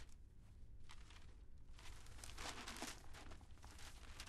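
Faint rustling and crinkling of bag fabric and paper as hands rummage through a bag, busiest about two to three seconds in.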